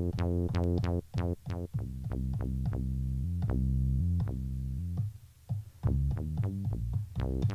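Chopped bass-loop slices triggered one after another from the pads of a Roland SP-404 MKII sampler. Each hit starts sharply on a low, pitched bass note, in a quick, uneven rhythm with brief gaps about a second in and about five seconds in.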